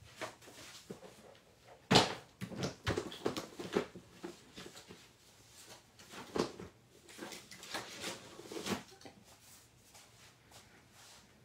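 Irregular knocks, clacks and rustles of craft supplies and cardstock being handled and sorted on a worktable, with one sharp knock about two seconds in.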